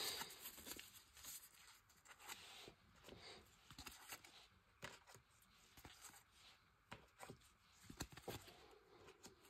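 Panini Adrenalyn XL trading cards being handled: faint rustling with scattered soft taps and clicks as the cards are moved and sorted.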